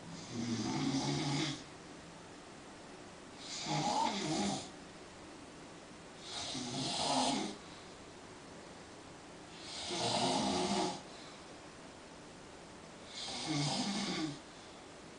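A man snoring in his sleep: five long snores, one every three seconds or so, with quiet breathing pauses between them.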